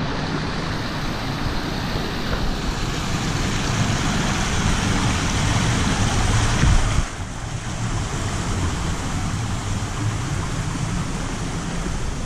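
Rushing stream water over rocks, mixed with wind buffeting on the microphone, a steady noise that dips suddenly about seven seconds in.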